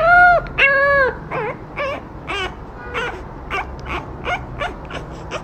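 French bulldog puppy crying: two short high-pitched cries, then a run of shorter, fainter whimpers, about three a second.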